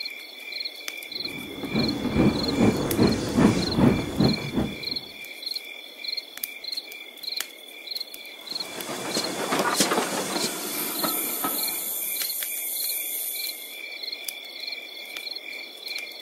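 Crickets chirping steadily, about two chirps a second, as a night backdrop. A motorized toy train rattles past along plastic track twice, its motor and wheels loudest about two to four seconds in and again around ten seconds in.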